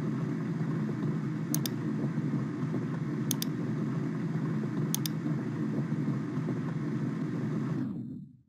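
Simulated water pouring into a tank through an open fill valve, a steady rushing noise that fades out near the end as the fill valve closes. Three mouse clicks, about a second and a half apart.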